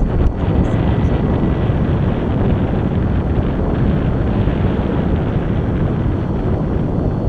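Steady wind rushing over the microphone of a rider on a Solowheel electric unicycle travelling at about 13 mph, a loud rumbling noise with no breaks.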